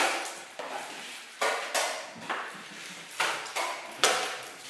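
Drywall taping knife scraping and clacking against a mud pan as joint compound is loaded and wiped off the blade: a quick run of short, sharp scrapes, about two a second.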